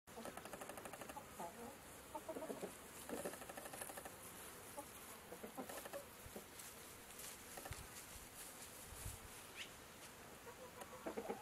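Chickens clucking faintly and intermittently, with one brief high chirp near the end.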